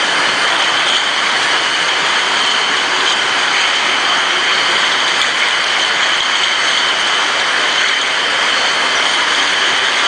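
Glass bottle washing line running: a steady mechanical din from the washer and its bottle conveyors, with a constant high squeal running through it.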